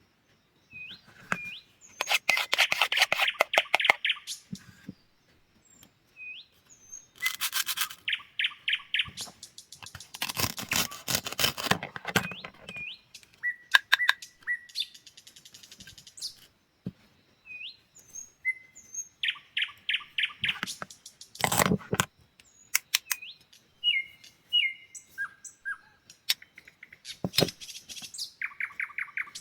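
Fruit and vegetables being cut: bursts of rapid crackling, each lasting a second or two, come every few seconds. Short bird chirps sound in the gaps between them.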